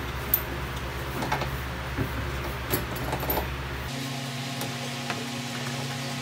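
A few light metallic clicks and knocks as a replacement rear shock absorber and its lower mounting bolt are worked into place by hand on a scooter, over a steady low hum whose tone changes about four seconds in.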